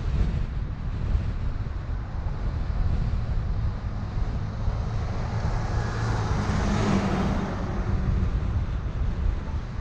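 Road and wind rumble from a car driving along a city street. An oncoming vehicle swells past in a rising-and-falling whoosh that peaks about seven seconds in.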